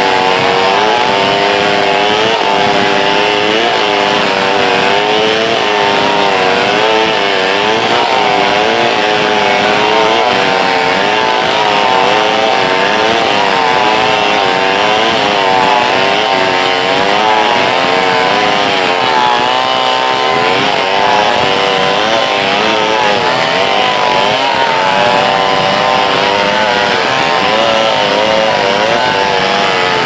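Stihl 070 two-stroke chainsaw running at high revs while cutting through a large log, its pitch wavering up and down throughout as the chain loads and clears in the wood.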